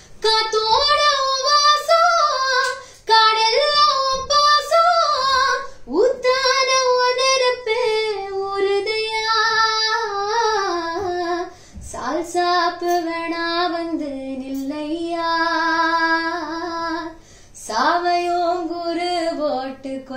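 A woman singing a Tamil film song unaccompanied, in five long, heavily ornamented phrases with brief breaths between them. The first phrases sit higher, and the later ones settle onto lower, long-held notes.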